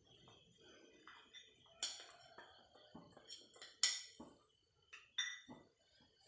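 Small stainless-steel idli cups clinking and tapping as they are picked up, brushed with oil and set down on the counter, with a few sharp ringing metal clinks, the loudest about four seconds in.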